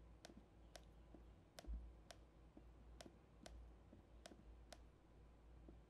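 Faint computer mouse clicks, about two a second, over near silence.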